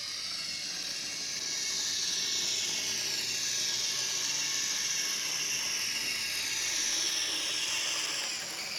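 Model train running along the layout track: a high mechanical whine from the locomotive's motor and gearing that falls slowly in pitch, with rattling wheel and gear noise. It grows somewhat louder about a second and a half in.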